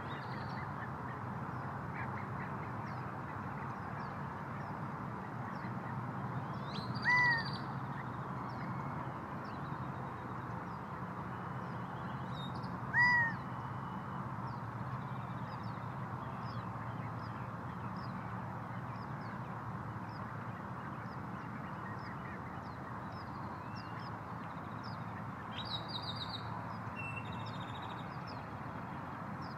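Gambel's quail giving two single hooting calls about six seconds apart, each a short note that rises and falls in pitch. Faint high chirps of other small birds and a steady background hiss fill the gaps.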